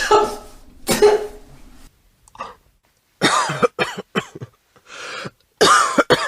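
A person retching and vomiting: a couple of harsh, noisy heaves at the start and about a second in, then a short pause, then a run of short, choking gags and coughs from about three seconds in.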